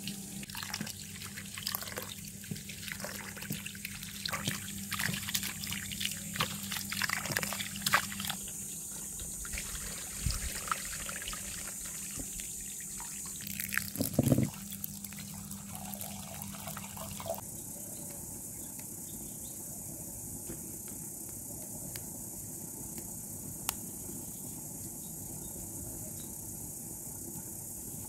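Water splashing and trickling as rice is washed by hand in a glass bowl under a garden hose, over a steady low hum. The water sounds stop about two-thirds of the way through, leaving a steady faint hiss.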